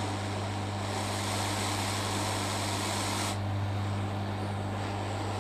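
Hot air rework station blowing onto a circuit board to reflow solder paste under newly placed capacitors: a steady airy hiss over a low hum, the hiss thinning out about three seconds in.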